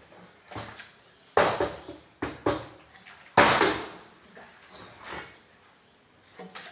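A handful of sharp knocks and clatters, each cut short, the loudest about three and a half seconds in.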